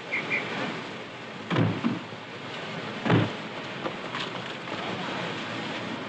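Busy railway platform noise with carriage doors slamming shut: two heavy thuds about a second and a half apart, and two short high pips at the very start.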